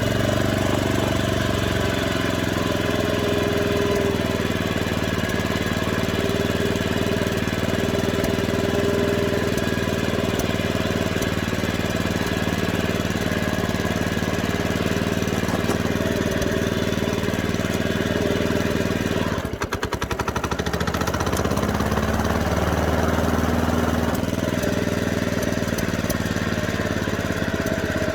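Honda push mower's small four-stroke engine running steadily on starting fluid sprayed into the intake, its fuel tank dry. About twenty seconds in it falters briefly, then picks up again and keeps running.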